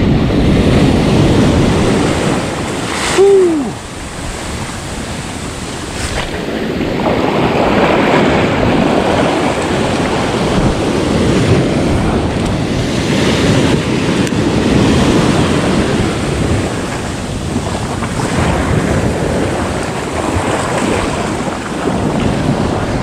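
Ocean surf breaking and washing up the sand, with wind buffeting the microphone. A brief pitched sound, falling in pitch, stands out about three seconds in.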